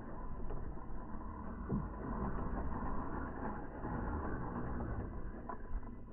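Electric motor and geared drivetrain of an Axial SCX10 III RC rock crawler whirring steadily as it crawls slowly over rocks, with a few small clicks from the tyres and chassis on the stone.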